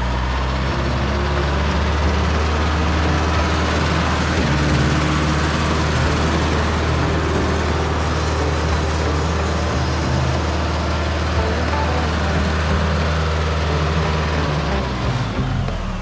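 Mahindra compact diesel tractor's engine running steadily as the tractor drives and manoeuvres.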